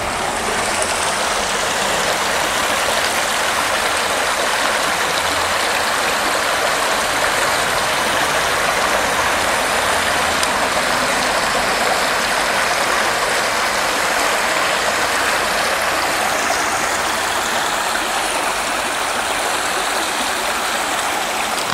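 Shallow creek water rushing over stones in a steady, even rush.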